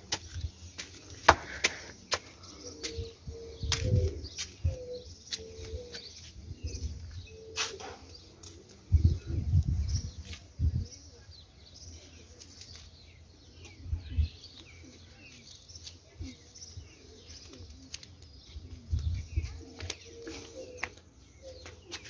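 Pigeons cooing in short low phrases, with flurries of wing-flapping, the biggest about nine seconds in. Scattered taps and scuffs of footsteps on concrete steps and sandy ground run underneath.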